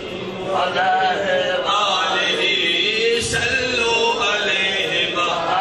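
A man chanting a naat, drawing out long notes that bend and waver in pitch.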